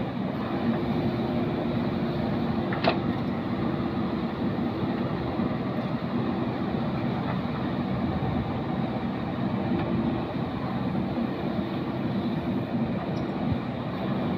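JCB 3DX backhoe loader's diesel engine running steadily under load while its backhoe arm digs and dumps soil, with one short sharp sound about three seconds in.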